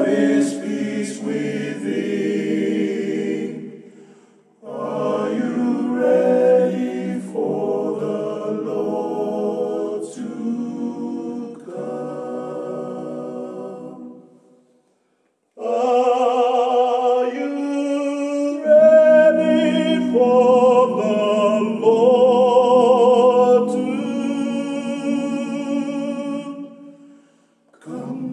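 Male a cappella vocal group singing a gospel song in close harmony, in phrases broken by two short pauses, the last phrase ending on a long held chord.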